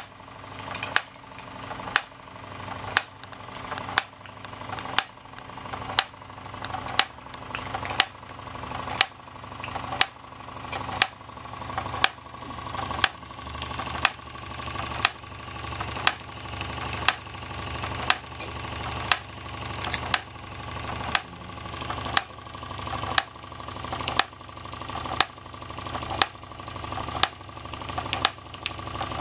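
Gas-fired Jensen 35 model steam engine running steadily and driving toy workshop machines through line shafting and belts, with a sharp click about once a second.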